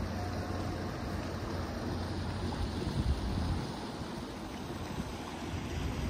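Outdoor city ambience: a steady low hum of traffic under a wash of noise, with a louder low rumble about three seconds in.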